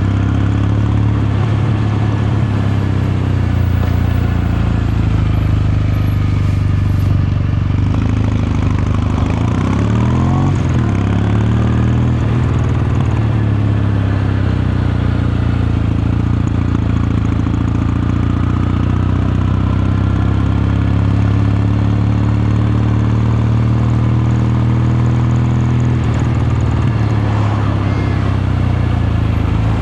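Kawasaki Meguro K3's air-cooled 773 cc parallel-twin engine and exhaust running steadily under way, with the revs dipping and climbing again about ten seconds in.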